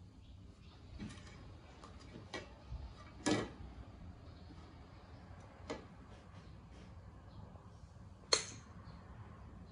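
Light taps and clicks of a small plate and pancake being handled on a window sill, with two sharper knocks, one about three seconds in and one a little after eight seconds.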